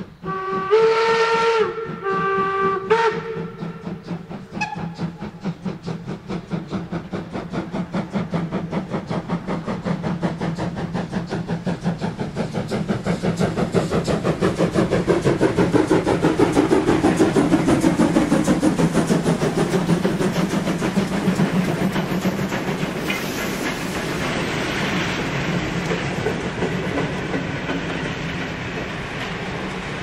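Steam locomotive sounding two blasts on its whistle near the start, then working past with a fast, even beat of exhaust chuffs that grows louder as it approaches and is loudest about halfway through. After it, the coaches roll by with wheel clatter on the rails.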